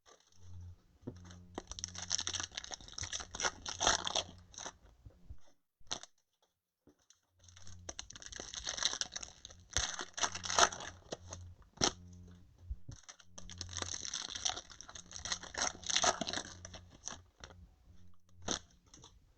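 Crinkling and tearing of foil trading-card pack wrappers as packs are opened, in three bouts of dense crackling with short pauses between.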